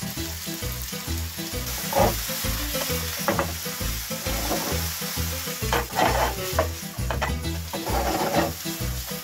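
Chopped onions sizzling in oil in a nonstick frying pan while a wooden spatula stirs and scrapes them, its strokes loudest about two, six and eight seconds in. The onions are being fried until golden. A steady low beat of background music runs underneath.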